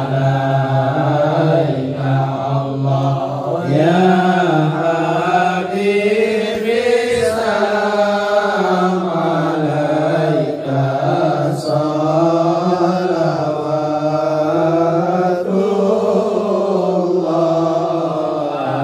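Men's voices chanting serakalan, the standing sholawat in Arabic praise of the Prophet Muhammad, in long drawn-out phrases whose held notes slide up and down in pitch without a break.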